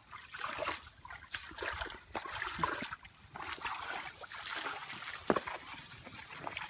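Bare feet wading through shallow muddy water and wet grass: irregular splashing and sloshing steps, with one sharper, louder sound about five seconds in.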